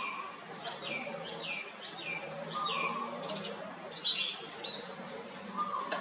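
Red-whiskered bulbul singing: a run of short, quick notes that each drop sharply in pitch, about two a second, then a few higher, flatter notes about four seconds in.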